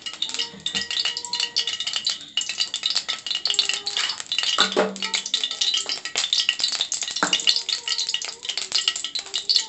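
Sesame oil sizzling and crackling as it heats in a hot metal kadai on a gas burner: a steady dense crackle with a few louder pops.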